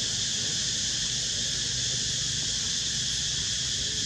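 Steady, high-pitched drone of an insect chorus in forest, unbroken throughout.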